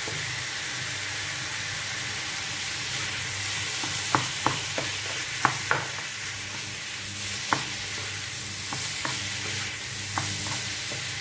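Minced meat sizzling in a frying pan while a plastic spoon stirs it, with a steady hiss. The spoon knocks against the pan several times from about four seconds in.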